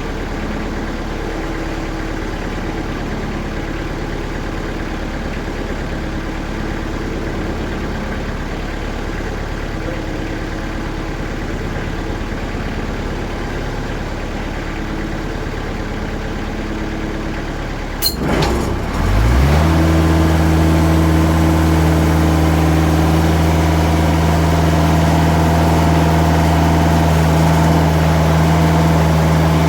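TimberKing sawmill's diesel engine idling steadily. About two-thirds of the way through there is a sharp click, and the engine revs up quickly and holds a louder, higher, steady running speed.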